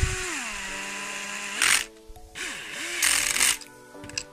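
Cordless electric screwdriver driving small screws into a motor-mount plate, running in short spins. Its pitch drops about half a second in, and there are two short, louder noisy bursts partway through and near the end.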